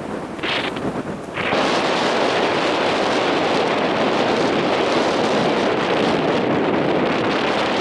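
Steady rushing wind noise buffeting the microphone, rising to a loud even level about a second and a half in.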